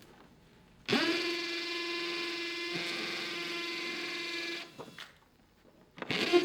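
Power drill running at a steady speed for about four seconds, a constant whine starting about a second in, while drilling a pilot hole.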